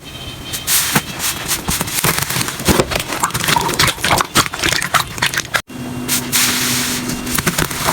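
Slime being squeezed and pressed by hand, giving dense crackling and quick popping clicks. The sound drops out for an instant a little past halfway, then the crackling resumes.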